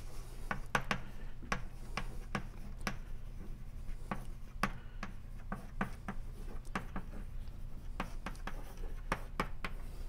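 Chalk writing on a blackboard: a string of irregular short taps and scratches as words are written, over a low steady room hum.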